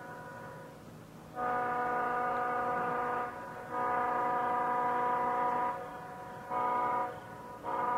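Leslie S5T five-chime locomotive air horn sounding a steady chord in blasts: two long ones, a short one, then a fourth that starts near the end. Long, long, short, long is the grade-crossing signal pattern.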